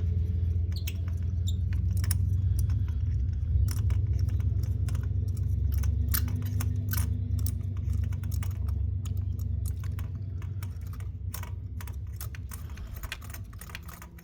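Small irregular metallic clicks and ticks of a spark plug socket and extension being turned by hand to unscrew a loosened spark plug from the engine, over a steady low rumble.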